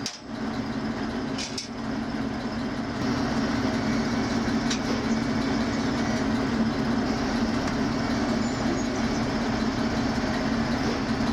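Oigawa Railway train running, a steady rumble with a low hum that builds over the first few seconds and then holds even.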